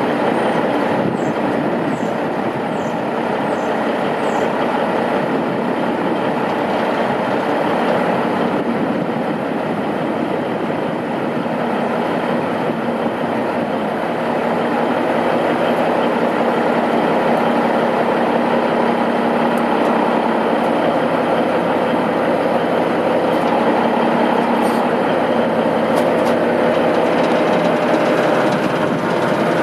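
Diesel engine of a 1988 Peterbilt 357 rollback truck running steadily, a loud mechanical drone, while the truck's hydraulic rollback bed tilts back.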